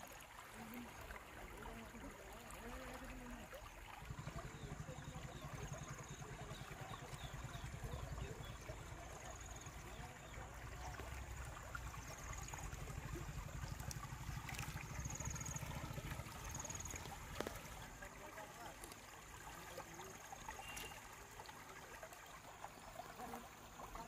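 Shallow river water flowing and trickling along a sandy bank, with a low steady rumble from about four seconds in until about eighteen seconds and a few faint high chirps.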